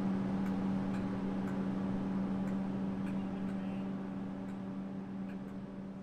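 Steady electrical hum from stabled Comeng electric suburban trains, with faint regular ticking about twice a second; the hum grows a little fainter toward the end.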